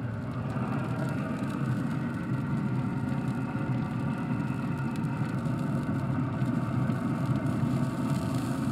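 Steady hum of a Traeger Ironwood pellet grill's fan running, a low rough drone with several steady tones over it.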